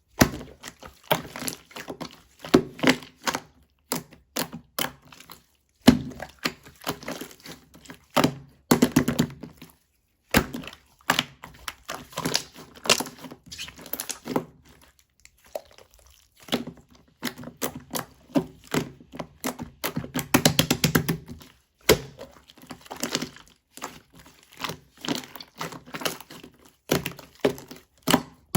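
Quick series of clicks and hollow knocks on a hard object, in bursts of one to three seconds separated by short pauses.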